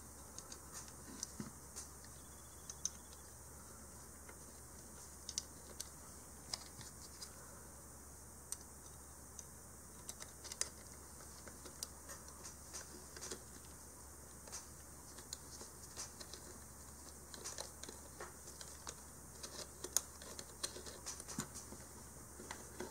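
Faint, irregular light clicks and ticks of a 3/32" hex key and small screw working in the metal hinge of a replica blaster stock as the screw's threads are started.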